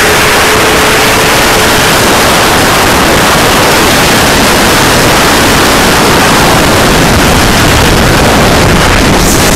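Wind rushing loudly and steadily over a phone microphone on a 2006 Yamaha YZF-R6 at road speed, with the bike's inline-four engine running through its Remus exhaust underneath. A faint steady engine note fades out about two seconds in.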